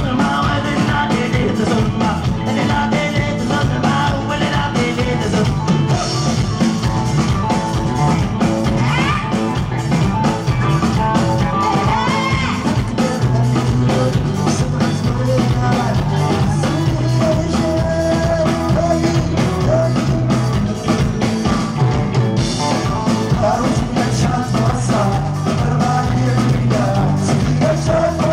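Live band playing Tuareg desert-blues rock, with electric guitars, bass guitar and a drum kit and a sung vocal line over them.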